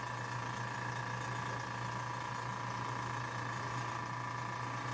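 Airbrush air compressor running with a steady hum and hiss, then cutting off abruptly near the end.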